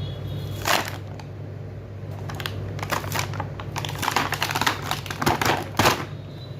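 Toy set's packaging being opened and handled: a run of crinkles, taps and clicks of plastic and cardboard, busier in the second half, over a steady low hum.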